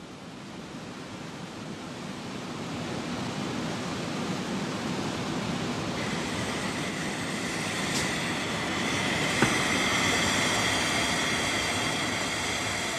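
Steady rushing noise of ammonia plant machinery, swelling over the first few seconds, with a high steady whine joining about six seconds in.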